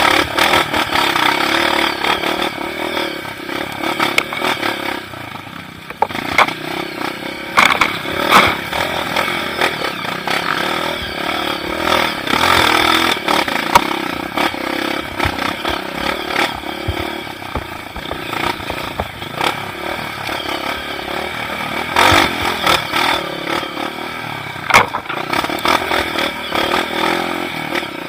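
Motorcycle engine running steadily while riding a rough dirt trail, with rattling and several sharp knocks from the bumps.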